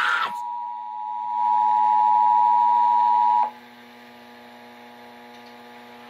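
Emergency Alert System attention signal: the steady two-tone alert, 853 and 960 Hz sounded together, played through a radio. It is the tone that comes before an EAS test message. It grows louder about a second in and cuts off suddenly about three and a half seconds in, leaving a faint steady hum.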